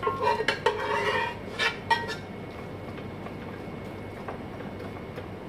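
A spoon scraping and clinking against a cooking pot while saucy chicken pieces are spooned out, a quick run of clinks with short ringing for about two seconds, then only faint kitchen background.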